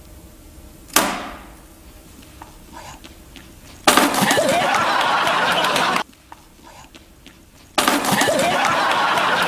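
A single sharp clank about a second in, then loud laughter and shouting from a studio crowd that starts suddenly about four seconds in, cuts off abruptly near six seconds and bursts out again near the end.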